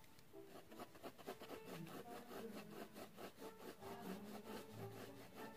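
Faint pencil scratching on drawing paper: quick, even shading strokes, about five a second.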